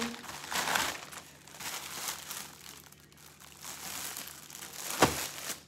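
Plastic bags rustling and crinkling as clothing is handled and pulled out of them, in irregular bursts with a quieter stretch midway. A single sharp snap about five seconds in is the loudest sound.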